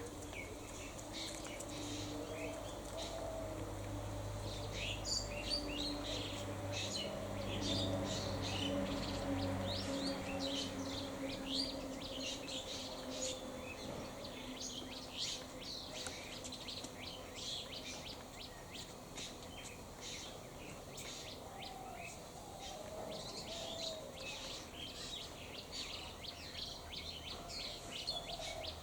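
Many small birds chirping in quick, short notes throughout, over a low steady hum that fades out about ten seconds in.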